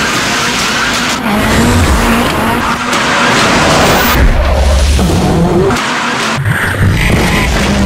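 Ford Fiesta rally car's turbocharged four-cylinder engine revving hard, its pitch rising and falling with the throttle, while the tyres screech through a smoking drift.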